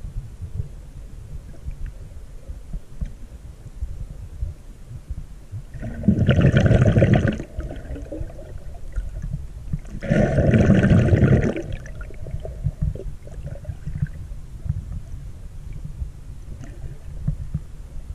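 Underwater recording during snorkeling: a steady low, muffled rumble of water moving against the camera, with two loud rushes of the snorkeler breathing through the snorkel, each about a second and a half long and some four seconds apart.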